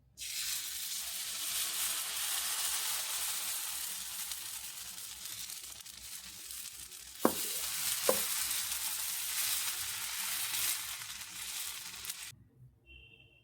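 A steady, even hiss that cuts in abruptly and cuts off abruptly near the end, with two sharp clicks a little under a second apart just past the middle.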